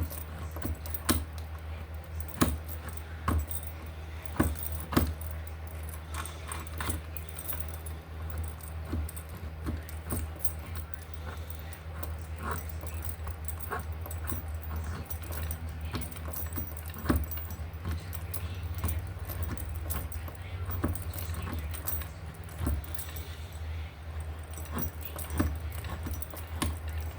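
Small metal keychain tools clinking and jangling as they are handled, with irregular sharp clicks throughout, over a steady low hum.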